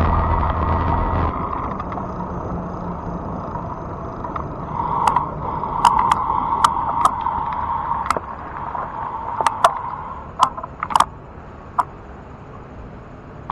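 Fat-tire electric bike riding along with a steady hum and rumbling wind on the microphone. The hum fades about eight seconds in, and a series of sharp clicks comes between about five and twelve seconds in.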